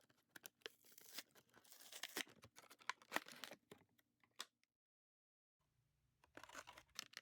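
Faint handling of toy packaging being opened: scattered clicks, crinkling and tearing of plastic and card. The sound drops out completely for about a second past the middle, then the faint rustling resumes.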